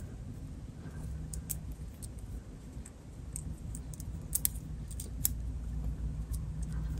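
Scattered faint clicks and ticks of small wires and connector parts being handled, over a steady low hum.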